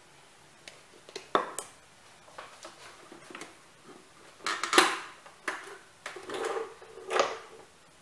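Kitchen items being handled on a countertop: a series of knocks and clatters, the loudest about five seconds in.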